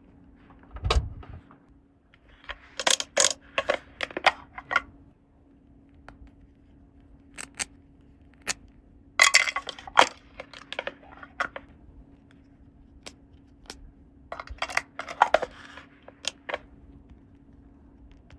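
Small plastic toy pieces being handled and set down, making sharp clicks, taps and short rattles in several clusters with pauses between, over a faint steady hum.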